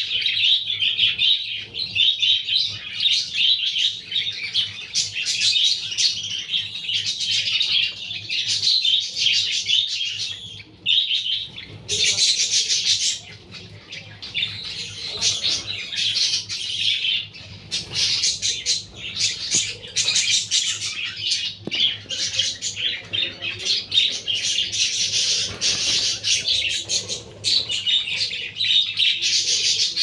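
Budgerigar nestlings chirping in rapid, almost unbroken runs of high-pitched calls: the begging of chicks being fed by the hen.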